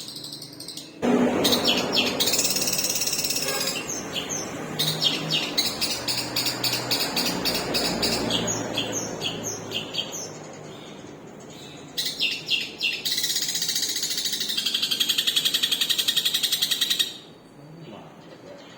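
Long-tailed shrike singing a long, unbroken run of rapid, varied chattering phrases and trills, starting about a second in and stopping shortly before the end.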